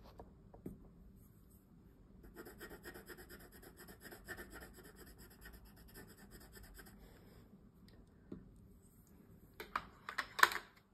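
Coloured pencil scratching rapidly back and forth on paper as a leaf is coloured in, for about five seconds. A few sharp clicks follow near the end.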